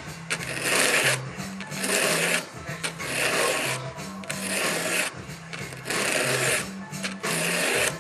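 Hand file rasping across a cutter of an Oregon 72 CL square-ground chainsaw chain, in even strokes about once a second, sharpening the tooth.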